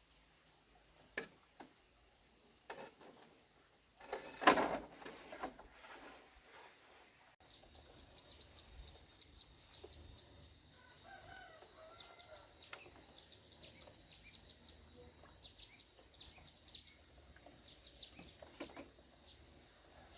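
Chickens clucking with rapid high chirping from small birds, after a few knocks and a loud rustling clatter about four seconds in.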